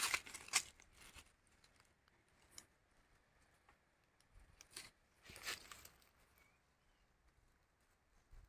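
Faint, sparse crackles of dry fallen leaves being stepped on and shifted, a few near the start and a short cluster around the middle, with quiet between.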